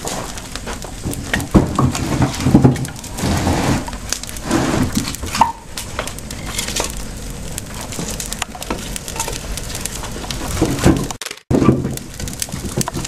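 Split firewood being stoked into the firebox of an anagama kiln: irregular clattering knocks of wooden sticks against each other and the brick stoke hole. The sound cuts out briefly near the end.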